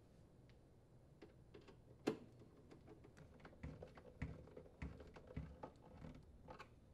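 Faint clicks and light taps of a Phillips screwdriver driving screws into a plastic ice maker front cover, with one sharper click about two seconds in.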